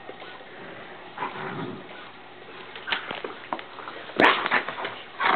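Dutch Shepherd dog making low grumbling and whining play noises, then a sudden loud outburst about four seconds in.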